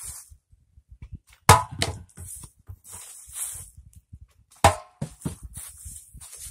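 Plastic water bottle flipped and landing with a hard knock, twice, about three seconds apart, each knock followed by a smaller bounce.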